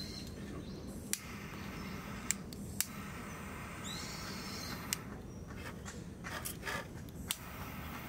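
About five sharp separate clicks from a long gas lighter's trigger being sparked repeatedly at a candle wick, spread unevenly over several seconds against steady background noise.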